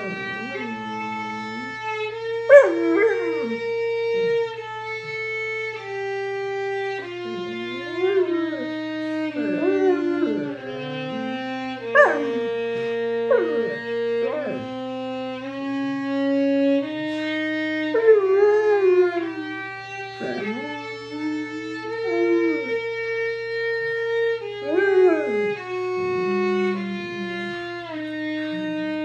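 Violin playing a slow melody of long held notes while an Alaskan malamute howls and yips along in short cries that bend up and down in pitch, over and over. The dog's cries stop a few seconds before the end, and only the violin goes on.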